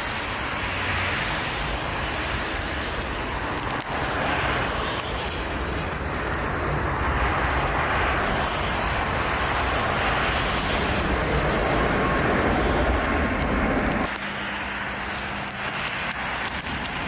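Jet airliner engine noise mixed with gusty wind buffeting the microphone, a steady rumble that swells and fades; it changes abruptly about fourteen seconds in.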